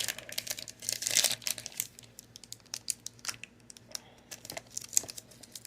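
Foil booster-pack wrapper of Pokémon cards crinkling as it is handled and torn open, with a dense burst of crinkling about a second in, then scattered lighter crackles and clicks.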